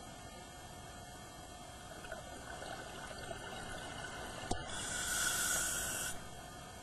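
A scuba diver's regulator breathing underwater, heard through the camera's underwater housing: bubbling builds about two seconds in, then after a click a loud hissing breath lasts about a second and a half.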